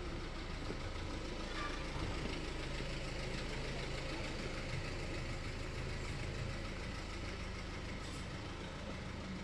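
Urban street ambience with a steady low engine hum, like a vehicle idling.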